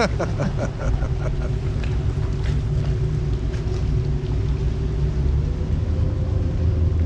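Tour boat's engine running steadily under way, a low drone with a faint steady hum above it.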